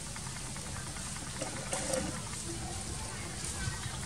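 Faint voices of people talking in the background over a steady low rumble.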